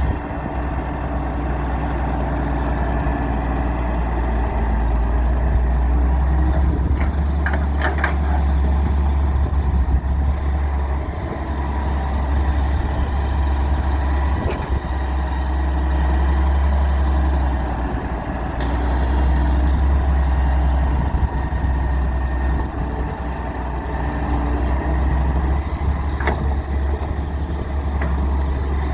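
Heavy diesel engine of a Daewoo 170W3 excavator running under working load. Its level rises and falls in slow waves with a few faint knocks, and there is a short hiss about 19 seconds in.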